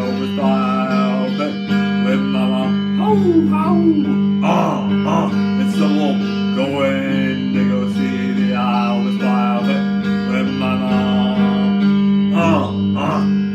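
A man singing into a microphone while strumming a Stratocaster-style electric guitar, with a steady low drone sounding under the song.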